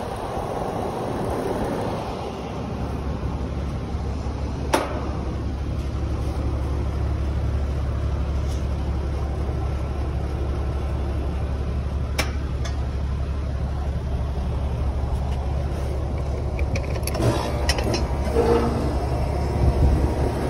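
Newly installed Goodman split-system AC condenser running with a steady low hum, with a few sharp clicks from handling on the unit's top panel.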